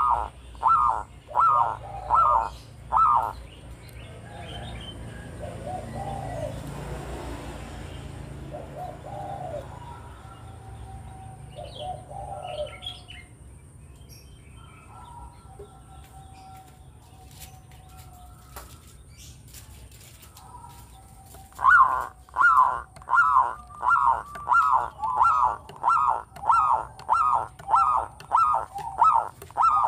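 Zebra dove (perkutut) calling: a run of quick, evenly spaced notes, about two a second, that breaks off about three seconds in and starts again loudly near the end. Between the two runs there is a quieter stretch of faint noise and a few soft notes.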